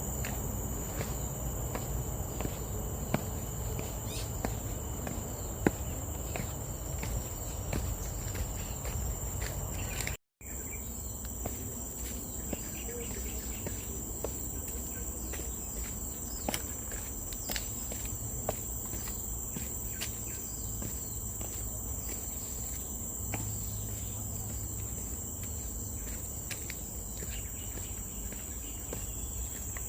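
Insects keeping up a steady high-pitched drone, with faint irregular ticks of footsteps on a trail. The sound drops out for a moment about a third of the way in.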